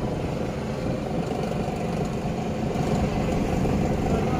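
Fishing boat's engine running steadily, a continuous low hum with a faint higher whine that comes in about a second in.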